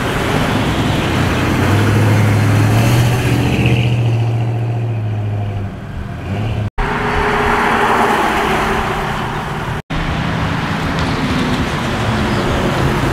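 Cars driving past on a road, engines running, with a strong steady low hum for a few seconds near the start. The sound breaks off abruptly twice, about seven and ten seconds in.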